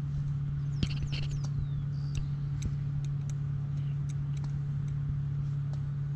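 A steady low mechanical hum, like an engine running, with scattered light clicks and a few faint high chirps about a second in.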